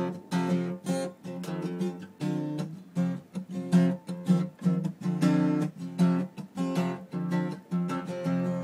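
Acoustic guitar strummed in a steady rhythm, a few strums a second.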